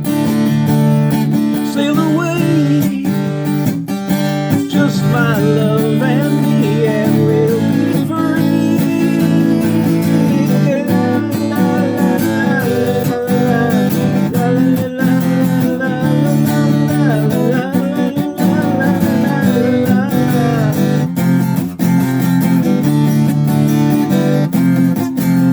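Music: a strummed acoustic guitar playing the instrumental ending of the song, with a wavering melody line above the chords.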